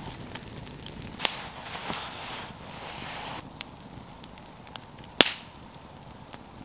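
Wood campfire crackling, with a handful of sharp pops from the burning logs, the loudest about five seconds in.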